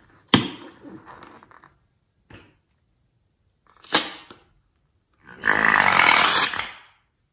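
Slime squeezed out of a balloon into a bowl of foamy slime: about a second and a half of wet, spluttering squelching near the end. It follows two sharp clicks, one just after the start and one about four seconds in.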